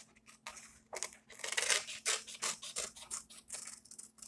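Scissors cutting through a piece of paper in a run of short, uneven snips as the paper is turned along a drawn line.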